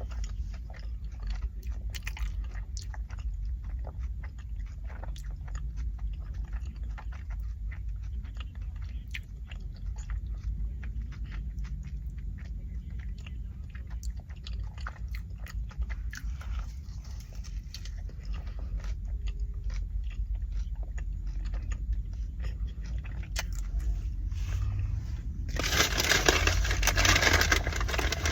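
Close-up chewing of a bacon and egg McMuffin: many small wet mouth clicks and smacks over a steady low hum. Near the end comes about two seconds of loud rustling noise.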